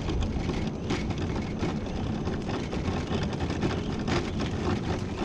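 Electric mobility scooter driving along a rough asphalt road: a steady rumble of its motor and tyres, with a couple of brief knocks.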